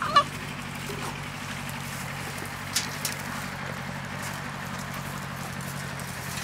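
A steady low machine hum under a faint background hiss, with one sharp knock a little under three seconds in.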